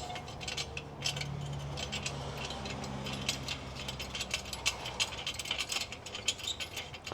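A ratchet wrench clicking in quick, irregular runs as a fastener is worked loose, with a low steady hum from about one to five seconds in.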